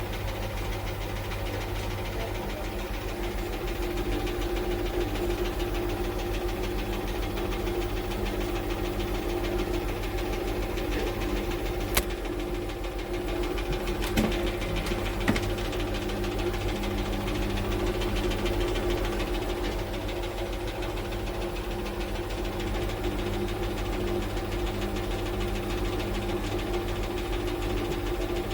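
Cecotec front-loading washing machine running, a steady motor hum with a fine flutter, and a few sharp clicks around the middle.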